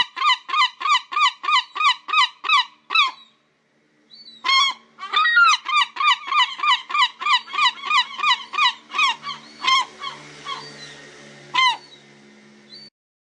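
Herring gull giving its long call: a rapid series of repeated yelping notes, about three a second. The series breaks off, then starts again after about a second's pause. The second series grows fainter and more spaced out before it stops near the end.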